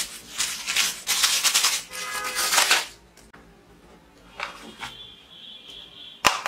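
Clear plastic packaging crinkling loudly as hands handle a bagged toy gun, for about three seconds. Then it goes quiet, with a thin steady high tone for about a second and a half and a sharp click just before the end.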